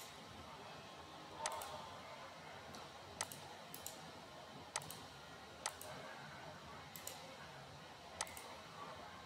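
Computer mouse clicking: about eight short, sharp clicks at irregular intervals, a few in quick pairs, over faint room hiss.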